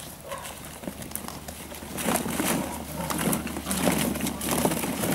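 Vizsla puppies scrambling in a plastic paddling pool full of hollow plastic ball-pit balls, with the balls knocking and clattering together. The clattering is quieter at first and becomes busy and louder from about two seconds in.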